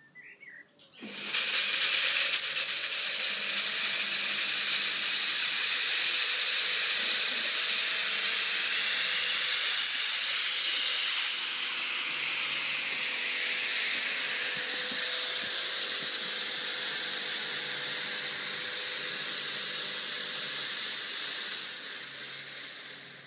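FogTech VP2500 2,500-watt fog machine firing a jet of fog: a loud, steady hiss that starts about a second in, slowly weakens from about halfway and dies away near the end, as the fogger's heated output runs out and it needs to warm up again.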